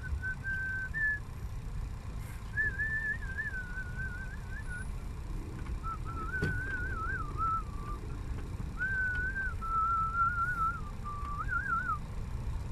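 A man whistling a tune in short, wavering melodic phrases over the low rumble of a truck engine heard from inside the cab.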